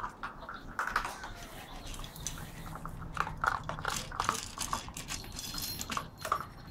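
Seven-week-old chocolate Labrador Retriever puppies eating dry kibble from a large stainless steel bowl: many irregular crunches and clicks as they chew and nose through the food.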